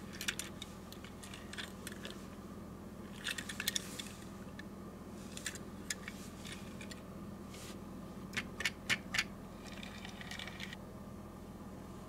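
Light clicks and taps of a Tomica diecast toy car being handled and turned by hand on a hard surface, fingernails and the metal body and wheels knocking lightly. A cluster of clicks comes about three seconds in and a quick run of four sharper clicks around nine seconds in.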